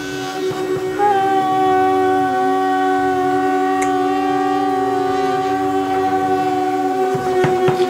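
Electric coffee grinder running with a steady motor whine, while a pet hums along in a held tone that bends and wavers against it. A few sharp clicks come near the end.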